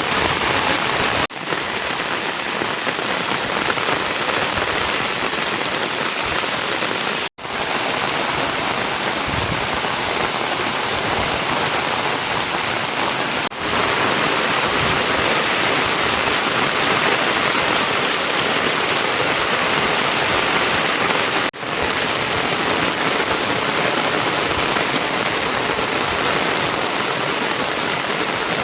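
Steady, loud rainfall hissing evenly, breaking off for an instant a few times.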